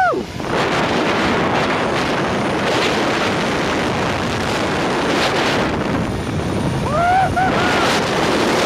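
Rushing wind buffeting the microphone during a fast zipline ride. About seven seconds in, the rider gives a brief wavering whoop.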